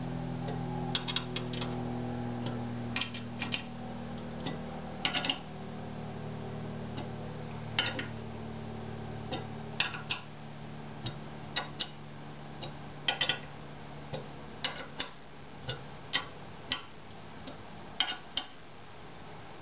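Irregular small metallic clicks and taps of a hex key working the bolts that hold a linear rail to aluminium extrusion, the bolts being brought down firm rather than hard. A low steady hum underneath fades away by about halfway through.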